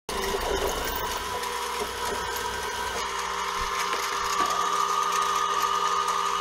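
CNC mini mill spindle running at 1200 RPM with a quarter-20 tap drill in it during a drilling cycle: a steady mechanical whine over a hum, getting a little stronger about two-thirds through.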